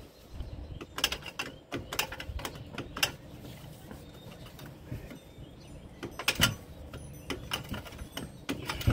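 A 3/8-inch drive ratchet with a 21 mm socket clicking in short, irregular runs, with sharp metal knocks between them. It is loosening a tight strut mounting bolt a little at a time.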